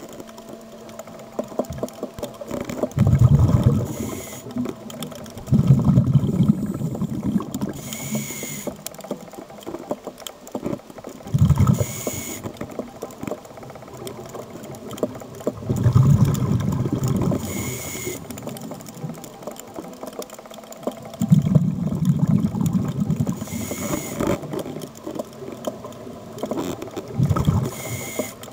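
Scuba diver breathing through a regulator underwater: a short hiss on each inhale, then a louder, longer rumble of exhaled bubbles, repeating about every five to six seconds.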